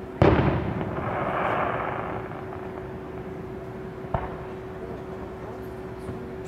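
Aerial firework shells bursting. A loud boom comes just after the start and rumbles away over about two seconds. A sharper, shorter bang follows about four seconds in.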